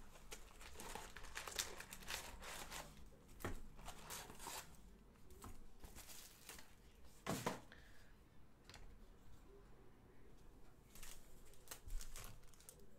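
Plastic wrapping crinkling and a stack of foil trading-card packs being handled and shuffled: faint, scattered crinkles and taps, with a sharper one about seven seconds in.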